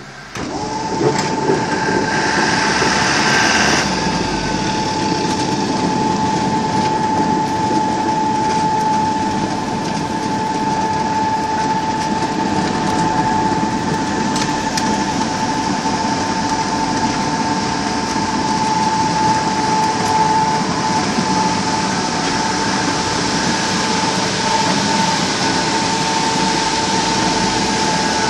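Potato conveyor belt running steadily with a load of potatoes, a constant high whine over a rough mechanical rumble, starting up just after the beginning.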